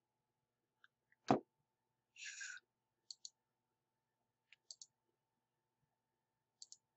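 Computer mouse clicks: several faint double clicks, each a quick press-and-release pair, with one louder sharp knock about a second in and a brief rustle just after two seconds.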